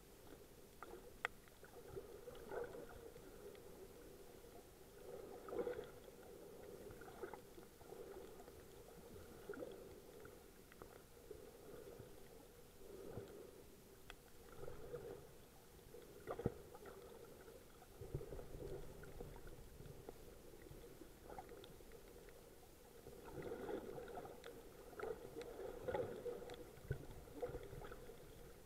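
Muffled underwater sound picked up by a camera held below the surface: faint moving water swelling and fading every second or two, with a few sharp clicks.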